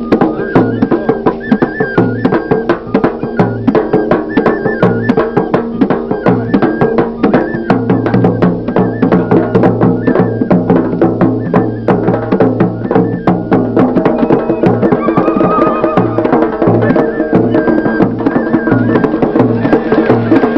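Lively traditional music for dancing: drums and sharp clicking percussion keep a fast, steady beat under a repeating melody line.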